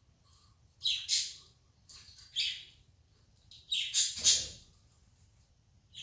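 Pet budgerigars chirping in short, harsh calls, in three clusters about one, two and four seconds in, the loudest near four seconds.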